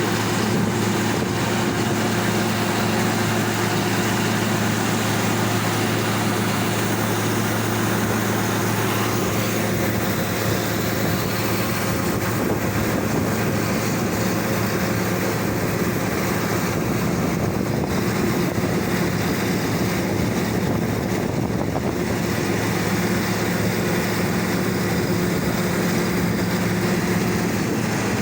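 A vehicle's engine running steadily at an even speed, a constant low hum with no changes in pitch or load.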